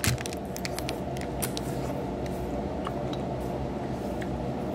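Close-up sounds of a person eating noodles with chopsticks: wet chewing, with a few small sharp clicks in the first second or so, over a steady low hum.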